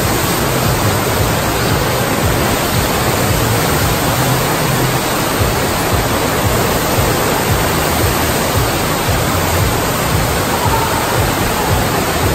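Water rushing steadily over an indoor surf simulator's sheet-wave ramp, a loud, unbroken roar of fast-flowing water.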